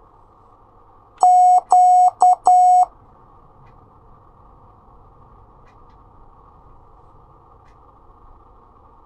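Morse code tone sending one character, dah-dah-dit-dah, the letter Q, as four beeps about a second in, over a faint steady hiss.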